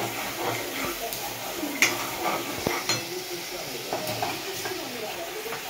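A metal spoon stirring and scraping curry in a pan, with sharp clinks of steel utensils and plates several times over a light sizzle.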